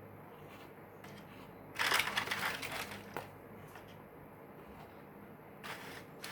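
Crunching of a crisp butter cookie being bitten and chewed: one loud crackly burst lasting about a second, then a shorter, softer crunch near the end.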